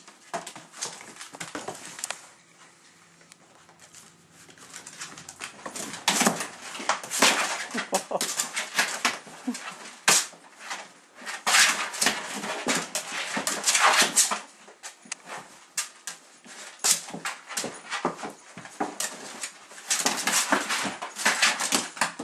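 A miniature pinscher and a Doberman play-fighting: irregular bursts of dog noises and scuffling. There is a quieter spell about two seconds in, and it turns loud and busy from about six seconds in.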